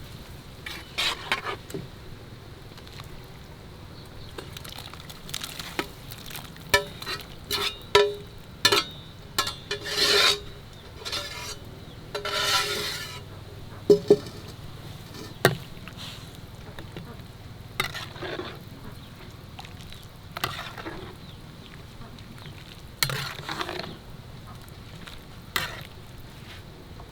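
Utensils clinking and scraping against cookware in short, irregular knocks, some with a brief ring, as food is stirred or served.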